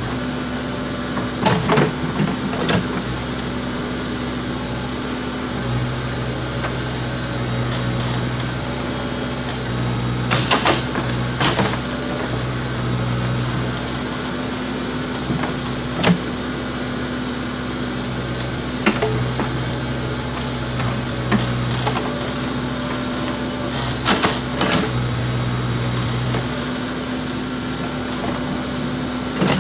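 Backhoe loader diesel engine running steadily while working, its note strengthening in stretches under load. Scattered sharp metallic clanks and knocks, a few close together around the tenth to twelfth seconds and again near twenty-five seconds.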